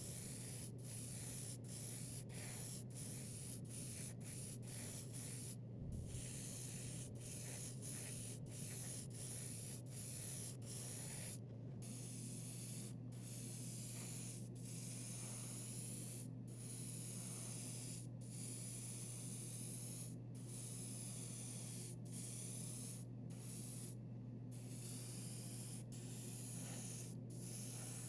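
Airbrush spraying paint, a steady hiss cut by brief pauses of the trigger, frequent in the first half and further apart later, over a steady low hum.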